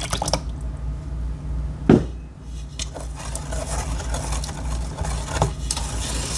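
Buttermilk poured into an enamel mixing bowl, a single knock about two seconds in, then a rubber spatula stirring the wet batter against the enamel bowl, over a steady low hum.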